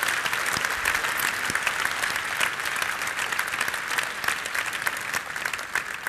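Audience applauding, many hands clapping, gradually dying down near the end.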